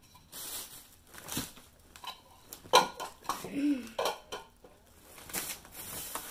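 Clear plastic trifle containers and their lids knocking and clattering as they are handled and set down: several separate sharp knocks, the loudest a little under three seconds in.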